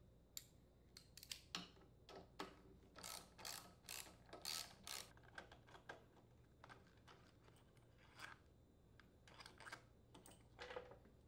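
Ratchet wrench with a 10mm socket clicking faintly in irregular short runs as it unthreads the mounting bolts of a Honda small engine's air filter housing and carburetor.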